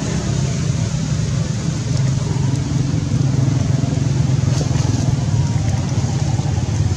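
A motor engine running steadily: a low, even rumble with rapid pulsing.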